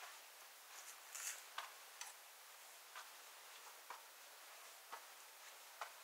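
Faint footsteps: short sharp ticks about once a second over a soft steady hiss.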